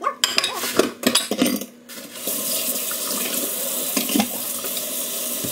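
Dishes knocking and clinking in a stainless steel kitchen sink, then the tap turned on about two seconds in and water running steadily into the sink.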